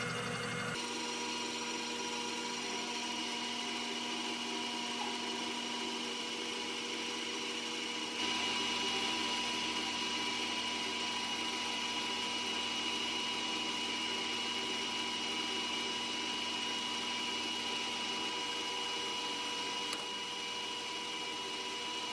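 Metal lathe running steadily, with a constant machine whine and hum; it gets louder about eight seconds in and drops back slightly near the end.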